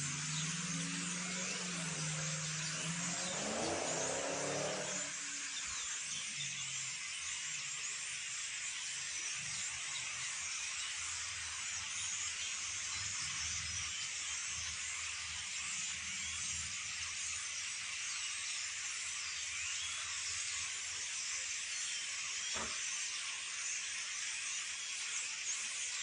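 A large flock of small birds calling all at once: a dense, shrill, continuous chatter of many overlapping high chirps. A low hum sounds underneath for the first five seconds or so.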